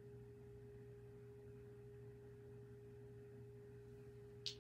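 Near silence: room tone with a faint steady hum holding one unchanging pitch, and a single brief click near the end.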